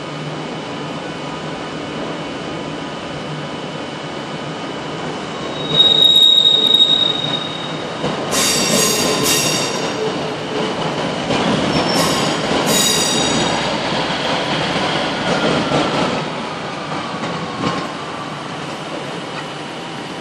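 Electric multiple-unit passenger train pulling out of the station, its wheels squealing on the curving track in several high-pitched bursts over the rumble of the carriages. The sound grows louder from about a third of the way in and fades again near the end.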